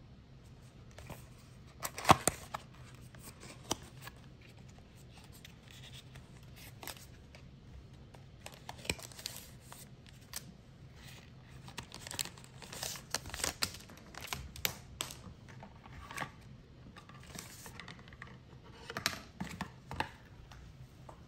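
Cardboard, paper and foil packaging of an iHealth COVID-19 rapid antigen test kit being handled and unpacked: irregular rustling, crinkling and light taps, the loudest about two seconds in, over a faint steady low hum.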